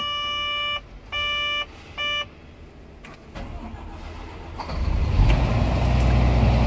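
Three electronic beeps from the excavator cab's electronics at key-on, one long and two short. About 4.5 seconds in, the Scania DC13 inline-six diesel of a Doosan DX530LC-5K excavator cranks, catches and settles into a steady idle, heard from inside the cab.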